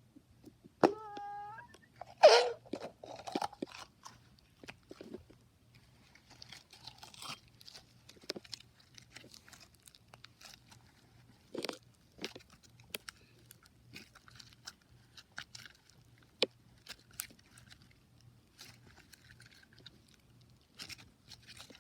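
Slime being squeezed and poked by hand, giving scattered crackles, clicks and small pops. A brief pitched squeak comes about a second in, and a louder one just after two seconds.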